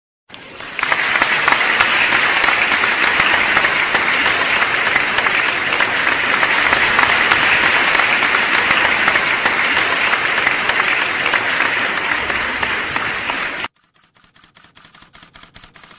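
Audience applauding steadily, a dense crowd clapping that cuts off suddenly near the end. Faint rapid ticking follows the cut.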